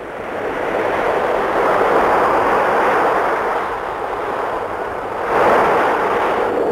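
Ocean surf breaking and washing up a beach, a steady rush of waves that swells again about five seconds in.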